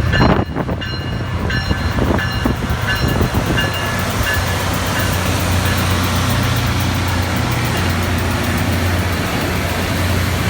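Rail grinder train working the track: a dense, steady grinding noise over a low hum, with a few knocks in the first few seconds.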